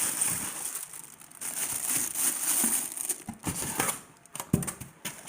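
Packaging being handled and crinkled while an exercise bike is unboxed: an irregular rustle with a few sharp knocks near the middle and later on.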